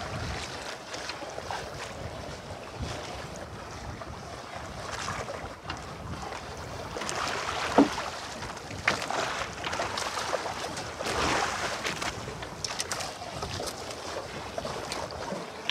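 Sea water lapping and splashing against a small fishing boat, with wind on the microphone. A sharp thump about eight seconds in, and a few smaller knocks and splashes later on.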